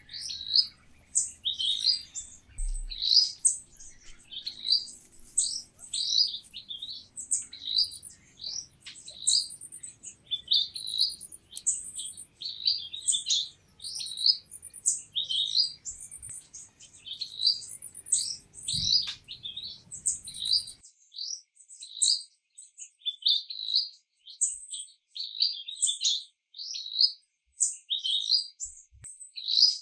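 Birds chirping: a fast, continuous run of short, high calls, about two a second. A faint low background underneath stops abruptly about two-thirds of the way through.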